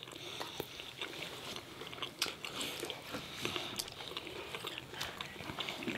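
A person chewing and biting food, with many irregular short wet mouth clicks.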